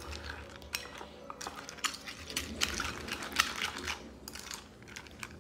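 A spoon stirring and scraping dog food mixed with raw egg around a ceramic bowl: irregular clicks of the spoon against the bowl, with a rougher scraping stretch about halfway through.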